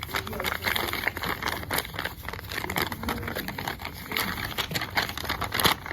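Paper rustling and crinkling as sheets are handled, a dense run of small crackles and scuffs.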